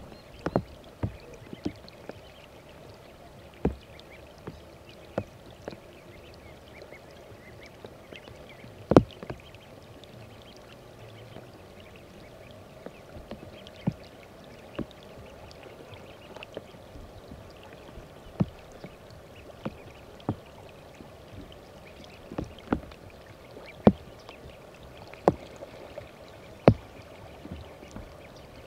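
Water dripping and splashing: irregular sharp drops every second or two over a faint, steady rush of water.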